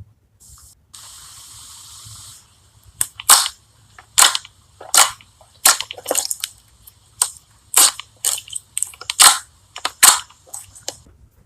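Slime being squished and worked by hand, giving a string of sharp, irregular pops and clicks, after a brief steady hiss near the start.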